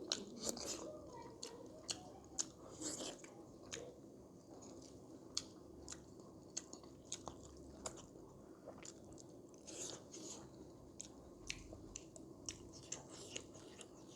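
A person chewing food close to the microphone, with many short, wet mouth clicks and smacks at an irregular pace.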